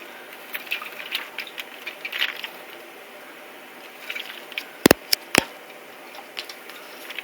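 Budgies bathing in shallow water: scattered small splashes and wet patters, with two sharp knocks about five seconds in.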